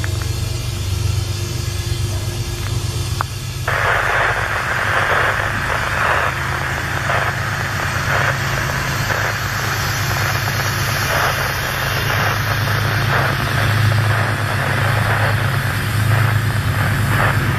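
Metro-North commuter train approaching and passing close by: a steady low engine drone, joined suddenly about four seconds in by loud rushing wheel-and-rail noise with rapid irregular clatter as the coaches roll past.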